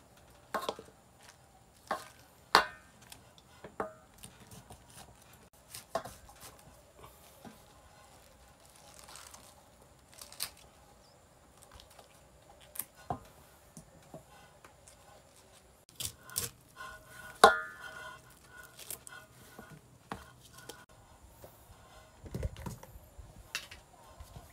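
Leafy green stems being snapped, stripped and trimmed by hand in an aluminium basin: scattered crisp snaps and leaf rustling, with a few sharper clinks of the knife against the metal bowl, the loudest about two and a half seconds in and again near seventeen seconds.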